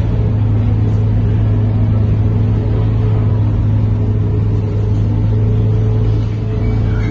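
Scania K230UB city bus heard from inside the passenger cabin while under way: the engine and ZF automatic gearbox give a steady, even-pitched drone with a low hum and fainter whining tones over road rumble.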